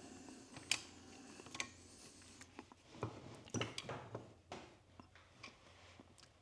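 Scattered light metal clicks and clinks of a non-ratcheting wrench being fitted and repositioned on a tight cylinder head bolt of a Suzuki DR-Z400SM engine, with a busier run of knocks a little past the middle.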